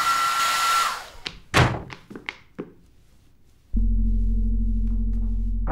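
An electric appliance motor whirring with a high whine, then shutting off about a second in, its whine dropping as it stops. A few sharp knocks follow. Near the end a low, steady droning tone sets in suddenly.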